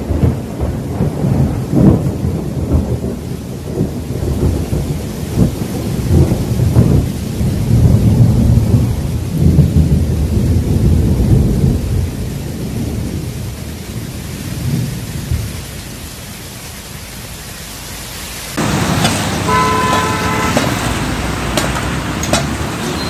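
Heavy rain with deep, uneven rumbling, the rumble easing to a steadier, quieter rain hiss toward the middle. Near the end it cuts suddenly to a wet street: traffic noise with a short pitched tone and scattered clicks.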